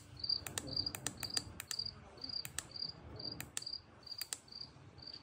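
Sound machine alarm clock playing its cricket nature-sound track: short high cricket chirps repeating steadily, a couple a second, with scattered sharp clicks.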